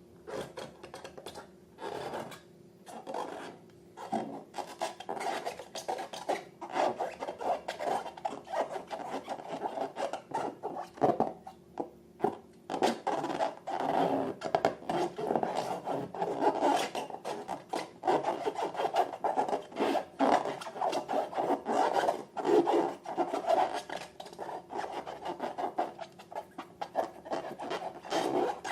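Slime being mixed and worked: a dense run of sticky clicks and rubbing, in short separate bursts for the first few seconds and then almost without a break.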